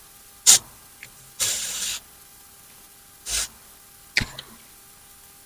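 Lace wig adhesive spray (Ebin Wonder Lace Bond) sprayed in a few short hissing bursts, one of them about half a second long, as the lace of a wig is sprayed down to stick it at the hairline.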